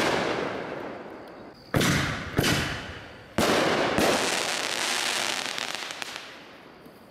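Consumer aerial fireworks bursting overhead: three sharp booms within about two seconds in the middle, each trailing off slowly. The last is followed by a fading crackle of the burst's stars.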